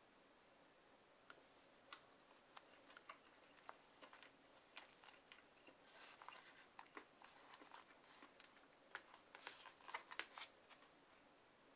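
Faint, scattered clicks and light scraping of wooden chopsticks against a plastic bowl as they pick up pieces of grilled eel and rice, growing busier about halfway through.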